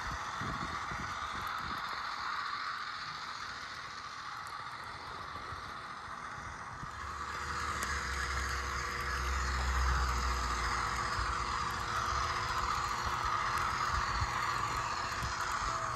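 Walthers Mainline HO-scale EMD NW2 model locomotive running along the track, with the whine of its small electric motor and helical gears and the light rattle of its wheels. A low rumble comes in for a few seconds about halfway through.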